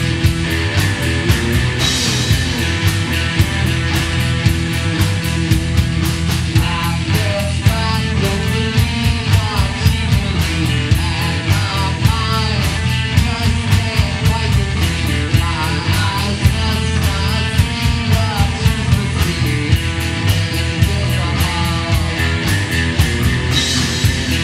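Rock song from a band's studio recording, playing at full volume with a steady beat.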